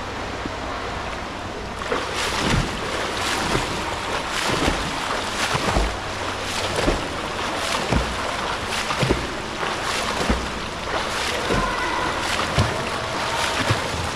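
A swimmer's strokes splashing in a pool, roughly one splash a second, starting about two seconds in over a steady hiss of churned water.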